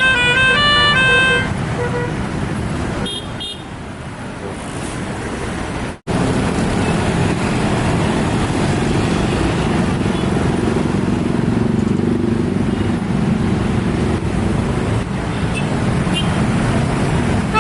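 Telolet bus horn playing a melody of stepped notes that ends about a second and a half in. Then a steady bus engine and traffic rumble, broken by a sudden dropout about six seconds in.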